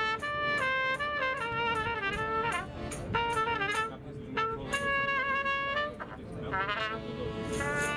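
A trumpet playing a melody live: phrases of held notes separated by short breaks, with a quick run of notes near the end.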